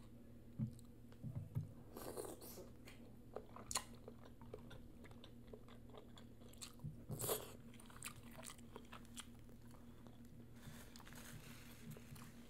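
Close-up mouth sounds of someone eating a sauce-coated boiled egg from a seafood boil: soft chewing and biting with wet smacks and scattered sharp clicks. The loudest come about two seconds in and again about seven seconds in.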